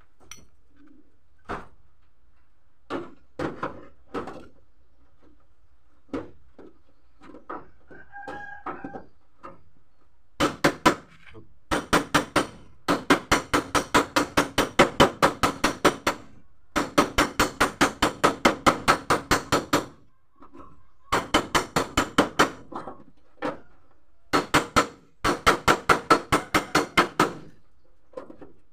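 Steel blade tapping the sheet-metal door of a Mitsubishi L300 van to work out a dent without breaking the paint. A few scattered taps come first, then runs of quick, even taps, about five a second, each run lasting a few seconds, with a ringing metallic tone.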